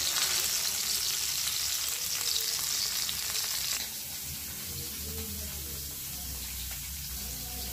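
Hot oil sizzling as buthai (oil sardines) shallow-fry in a cast-iron pan. The sizzle drops to a quieter, steadier hiss about four seconds in.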